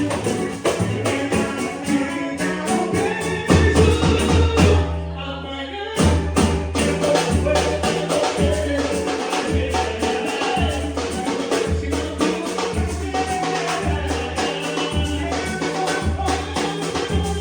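Music with dense, quick percussion over a pulsing bass line. The percussion thins out briefly about five seconds in, then comes back.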